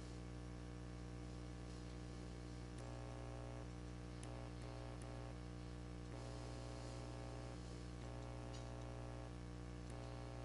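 Low, steady electrical hum with a buzzing stack of overtones. Faint higher tones shift every second or so above it.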